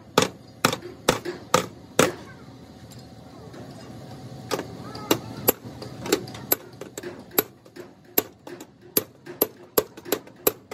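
Hammer blows on a flat chisel held against the crumpled sheet-steel inner fender of a crash-damaged car, sharp metallic strikes at about two a second. Five strikes open the run, then after a pause of about two seconds the hammering picks up again and keeps a steady beat.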